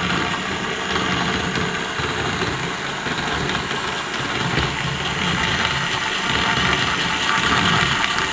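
A steady engine running at idle, with an uneven low rumble under a constant hiss.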